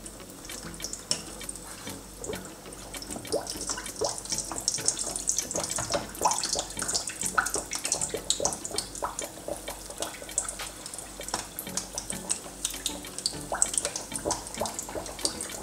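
Pastry meat pies deep-frying in a pot of hot oil: a steady sizzle with many small crackles and pops, growing busier a few seconds in.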